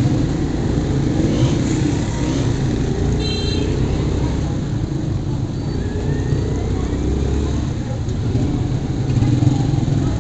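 Motorcycle engine running at low speed through a busy market street, with the mixed noise of other motorbikes and passers-by; a short high-pitched tone sounds about three seconds in.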